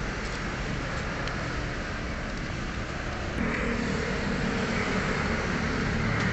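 Steady background vehicle noise, a running motor vehicle with traffic hum, growing a little louder about three and a half seconds in.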